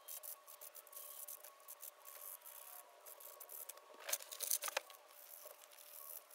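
A small carved wooden lure blank being hand-sanded with a sanding sponge: quick, scratchy rubbing strokes, with a few louder scrapes about four seconds in.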